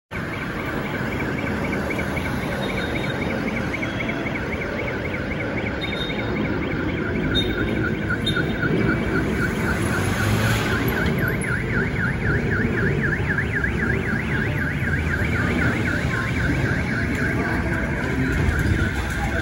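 Steady low rumble of an Airbus A320-214's CFM56 jet engines climbing out overhead, with a rapid high warbling tone running over it.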